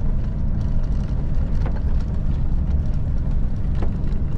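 Steady low rumble of a Scania R580 V8 truck heard from inside its cab while driving on packed snow and ice, with a few faint knocks.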